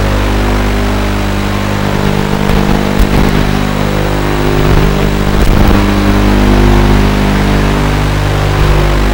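QAV210 racing quadcopter's brushless motors and propellers running, heard through its onboard microphone with a hiss over it. Their pitch shifts with throttle around the middle, with a few short crackles.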